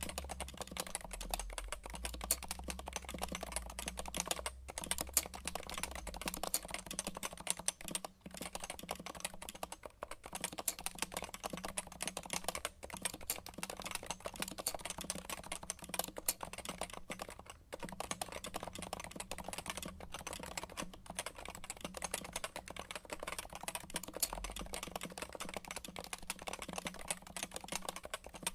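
Fast continuous typing on a mechanical keyboard fitted with Tai Hao doubleshot PBT keycaps: a dense run of key clicks and bottom-outs, broken by a few short pauses.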